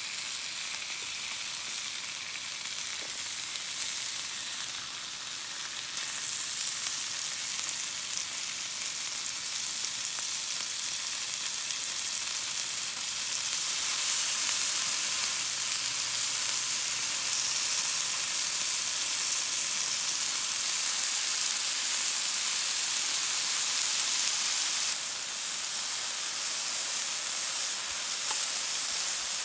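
Thin slices of beef sizzling steadily on a non-stick stovetop Korean BBQ grill pan. The sizzle grows a little louder about halfway through as more meat covers the pan.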